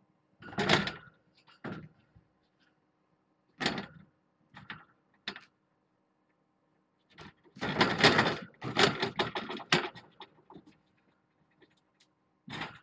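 A cat pushing and clambering against a fence, setting it rattling and clattering in irregular bursts, with the longest, loudest run about eight seconds in.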